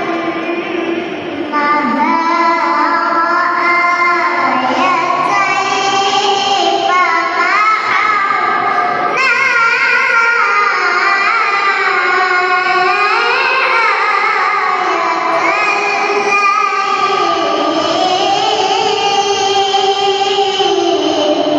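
A young girl's voice reciting the Quran in melodic tilawah style: long held, ornamented phrases that waver up and down in pitch, with a short break about a second in.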